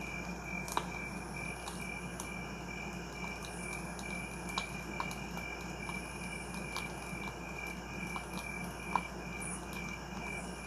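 Crickets chirping: a steady pulsed high chirp repeating several times a second, with a few faint clicks scattered through it.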